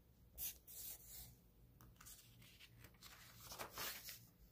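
Faint paper sounds: a pen marking a glossy catalog page with a couple of short scratches, then the page rustling as it is turned, about three and a half seconds in.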